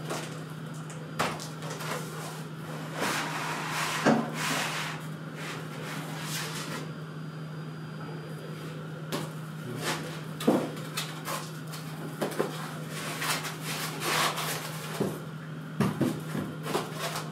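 Unboxing handling noise: cardboard box and foam packing rustling and scraping, with irregular knocks as the packed printer and foam blocks are lifted out and set down on the table. A steady low hum runs underneath.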